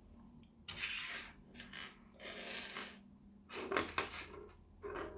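Small plastic LEGO pieces clattering and clicking as they are handled, in short bursts, with a few sharper clicks near the end as pieces are fitted together.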